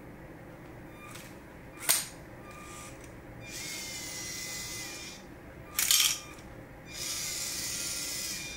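Small LEGO electric motors whirring in two stretches as a LEGO Technic robot drives and works its lifting arm, with a sharp plastic click about two seconds in and a louder clattering knock around six seconds in as the arm and brick move.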